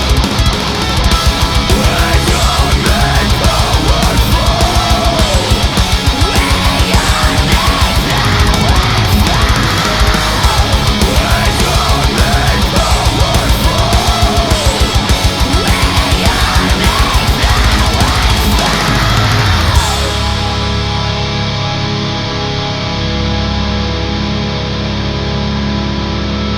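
Recorded heavy rock or metal music with distorted electric guitar and fast, dense drumming. About twenty seconds in, the drumming stops and held guitar chords ring on, sounding duller.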